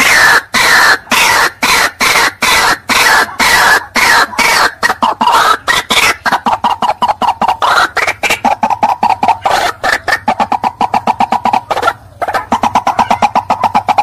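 White-breasted waterhen (ruak-ruak) calling: a loud, unbroken series of harsh repeated notes that speed up after the middle, with a short break near the end.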